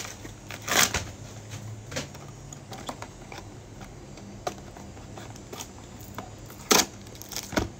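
A small cardboard gift box being handled and opened by hand: scattered light clicks and rustles of card and paper, with a few sharper snaps about a second in and near the end.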